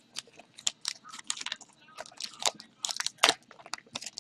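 A trading card pack's wrapper being torn open and crinkled: a run of sharp, irregular crackles.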